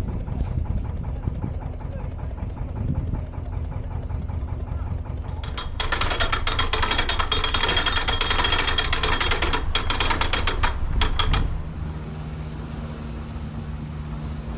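Narrowboat diesel engine idling with a rapid, even throb. From about five seconds in to about eleven seconds, a much louder rushing hiss joins it, then drops away, leaving the engine idling.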